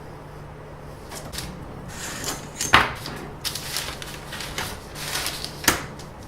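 Close handling noises, rustling and scraping, with two sharp clicks, the loudest a little under three seconds in and another near the end, over a low steady hum.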